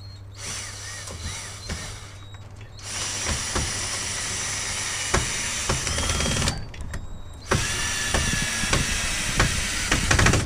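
Cordless drill driving screws overhead to anchor a tree branch: a softer run, then a long loud run of about four seconds, a short pause, and another run of about three seconds, with knocks of the work between runs.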